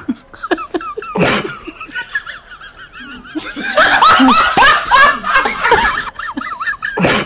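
People laughing, loudest through the middle, with a short sharp burst of noise about a second in and another near the end.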